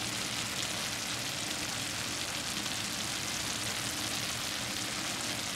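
Mushrooms sautéing in a frying pan, a steady sizzle.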